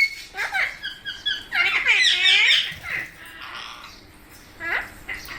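Several Indian ringneck parakeets squawking in short, harsh calls, one after another. About a second in comes a quick run of short chirps; the loudest call is around two seconds in, and another comes near the end.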